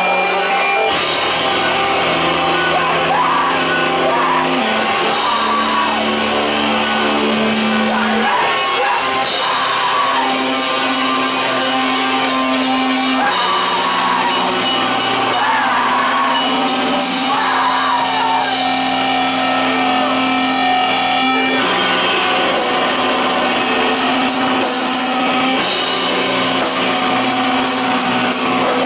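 Live rock band playing loud: two electric guitars holding chords that change every few seconds over a drum kit, with the drum and cymbal hits coming thicker near the end.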